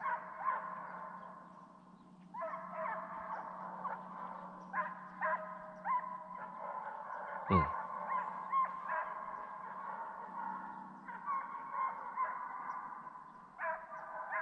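A pack of deer hounds baying in chorus, overlapping long bawling howls that swell and fade in waves as the dogs run a deer's track. A short falling swoosh cuts in about halfway through.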